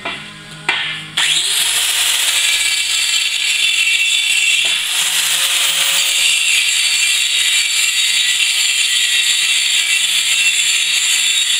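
Angle grinder spinning up about a second in, its whine climbing, then running steadily against a steel wheel rim with a high grinding hiss; the motor's pitch dips briefly around the middle and recovers as it bears into the steel.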